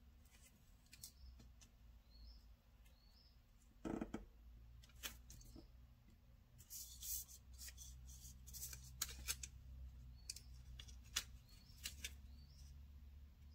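Faint, scattered clicks and scratches of a craft knife trimming paper sticker strips on a planner page, with the light rustle of the sticker paper being handled. One louder knock about four seconds in.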